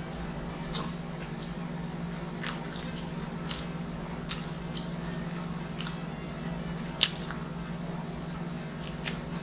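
Close-miked mouth sounds of a person chewing and biting pizza: soft scattered clicks and smacks, with one louder click about seven seconds in. A steady low hum runs underneath.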